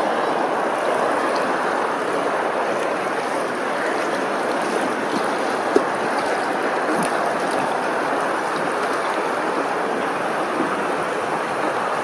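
Steady rushing of water, an even noise with no bird calls, broken by one sharp click about six seconds in.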